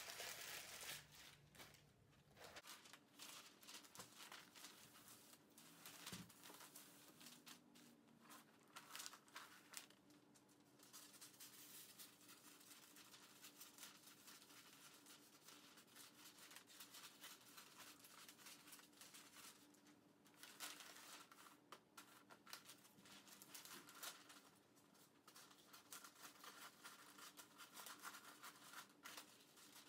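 Faint rustling and crinkling of Christmas wrapping paper being handled and cut with scissors, in many short scattered crackles.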